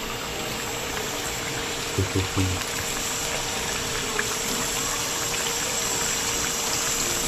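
Steady sizzling hiss of fish frying in hot oil, getting slightly louder.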